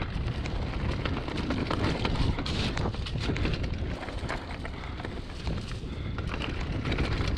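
Mountain bike riding a dirt trail strewn with dry leaves: tyres on dirt and leaves and the bike rattling with many quick clicks and knocks over bumps, over a steady rumble of wind on the microphone.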